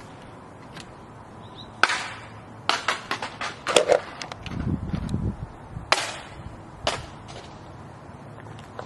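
A scattering of sharp knocks and clatters, a handful of separate hits spread over several seconds, with a brief low rumble in the middle.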